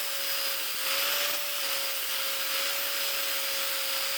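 Electric grinder with a flap wheel running at steady speed, grinding down the sharp corners of fabricated steel axle bat-wing brackets; its pitch sags slightly a couple of times as it bites into the metal.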